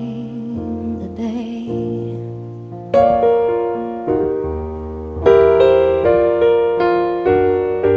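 Piano outro of a slow ballad. A held note fades over the first two seconds, then piano chords are struck one after another from about three seconds in, each left to ring and die away.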